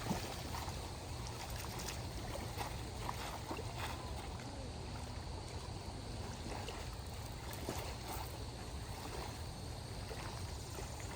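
Water lapping and trickling around a small boat, with a steady low rumble underneath and scattered small knocks and clicks.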